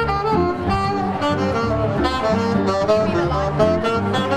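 Small jazz band playing, with a saxophone carrying the melody over keyboard, guitar and bass guitar.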